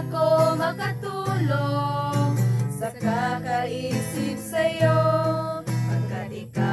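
A group of girls and young women singing a song together, accompanied by an acoustic guitar.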